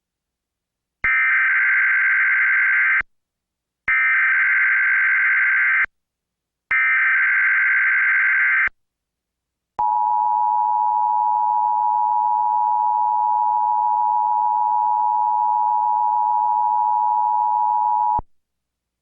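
Emergency Alert System header from a Trilithic EASyPLUS encoder: three bursts of SAME data tones, about two seconds each with a second's gap between them, sent for a Required Monthly Test. A steady two-tone EAS attention signal follows and holds for about eight seconds before cutting off.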